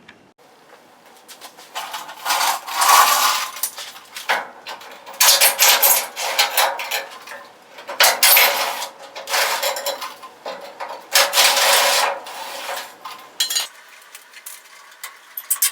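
Small metal parts clinking and rattling as they are handled, in four or five bouts of a second or two each.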